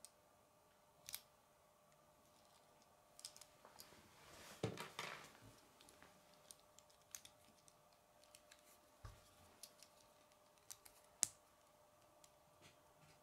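Faint clicks and small rattles of plastic K'nex pieces being handled, with a louder rustle of handling about four to five seconds in and one sharp click near the end.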